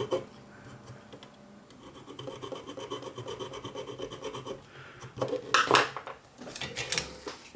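Small metal file rasping in quick, repeated strokes, scraping the enamel coating off copper wire so it can be tinned with solder. Near the end come a few louder bursts of handling noise.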